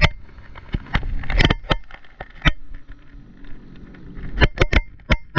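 Jet ski ride on open water: a low rumble of wind and motion with about a dozen irregular sharp knocks and slaps, bunched around the first and second seconds and again near the end.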